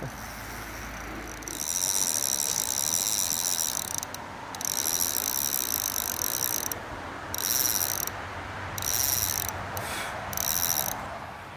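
Fly reel's drag buzzing in five spells as a hooked fish pulls line off: two longer runs of about two seconds, then three short bursts near the end.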